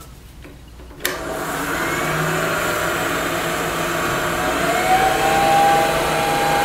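Wood lathe switched on about a second in and running with a steady motor hum and whine. The whine climbs in pitch about four seconds in, then holds steady, as the lathe comes up to speed while finish is applied inside the pendant's drilled hole.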